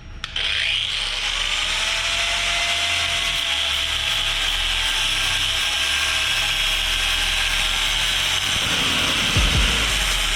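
Electric power tool switched on suddenly, its motor spinning up and then running steadily with a high whine. A few low knocks near the end.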